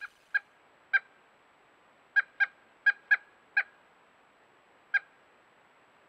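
Pileated woodpecker calling: a series of nine short, single 'wuk' notes at irregular intervals, with two quick pairs in the middle and a last note about five seconds in.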